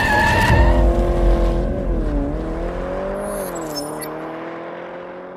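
Intro sound effect of a car engine revving: a loud rumble, then a revving note whose pitch dips and rises twice before fading away.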